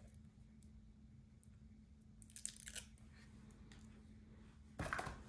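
Faint handling rustle, then near the end a louder crinkling of paper or plastic packaging being picked up and handled, over a faint steady hum.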